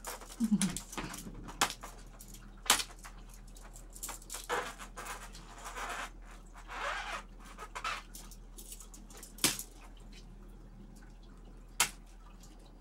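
Cats at play chasing a wand toy: scattered taps and knocks of paws landing and the toy striking things, a few of them sharp, with brief soft rustling in between.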